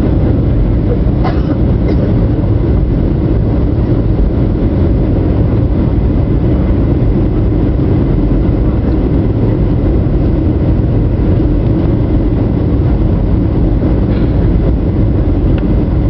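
Steady low rumble of a Boeing 737's jet engines and rushing air, heard inside the passenger cabin on final approach.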